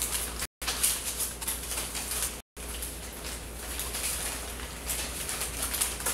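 Paper receipts and banknotes rustling and crinkling as hands press and rub them against a face, a constant crackle over a low hum. The sound cuts out completely twice, briefly.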